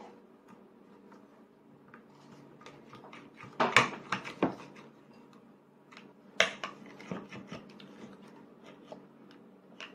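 Children's training chopsticks clicking and scraping against a child's plate as a toddler picks up food: two clusters of sharp taps, a little past a third of the way in and again about two-thirds in, with scattered lighter clicks between.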